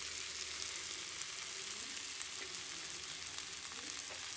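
Potato and capsicum sabzi sizzling in a kadhai on the heat left in the pan after the gas is turned off: a steady hiss with a couple of light ticks.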